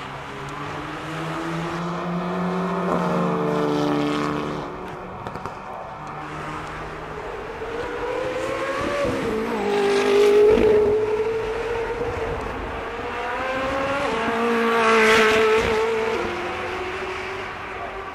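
Several fast cars going past one after another, their engine notes rising under acceleration and falling as each one passes. The loudest passes come about ten and about fifteen seconds in.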